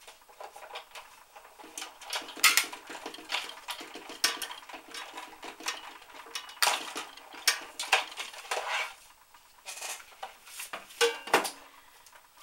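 Big Shot die-cutting machine at work: the acrylic cutting plates and magnetic platform clack and click against the machine as the handle is cranked to roll the sandwich through, then the plates are pulled out and set down with several loud clacks.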